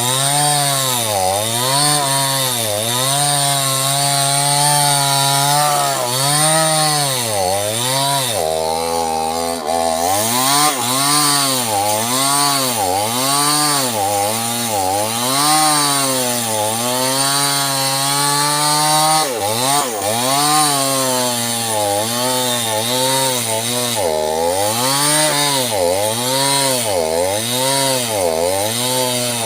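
Small two-stroke chainsaw cutting sengon wood. The engine pitch repeatedly drops and climbs back, about once a second, as the chain bites in under load and the engine picks up again.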